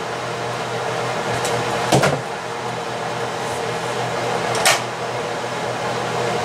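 Steady hum and hiss of a running kitchen appliance, with a dull knock about two seconds in and a short, sharp click near five seconds in.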